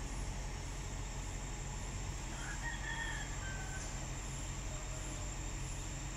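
Steady low drone of idling construction machinery engines. About two and a half seconds in, a rooster crows briefly.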